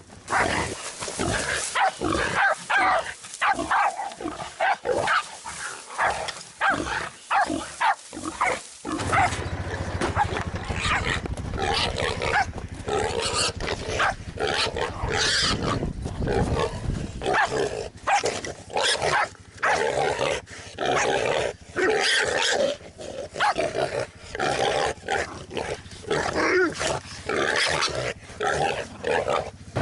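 Jack Russell terriers and another dog barking and growling as they seize and hold a wild boar, a rapid string of short calls at first, then ongoing barks and snarls. From about nine seconds in there is a steady low rumble on the microphone.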